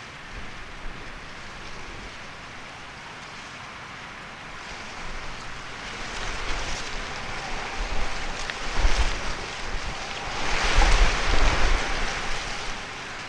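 Wind gusting against an outdoor microphone, buffeting and rumbling over a steady hiss. It builds from about five seconds in, is strongest near the end, then drops back.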